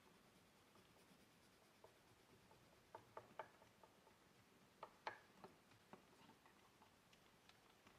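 Near silence: room tone with a few faint, short clicks and taps, a small cluster about three seconds in and another about five seconds in.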